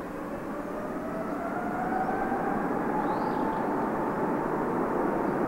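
Boeing 777-300ER's twin GE90-115B turbofan engines on its takeoff: a broad jet rush slowly growing louder, with an engine whine gliding up in pitch.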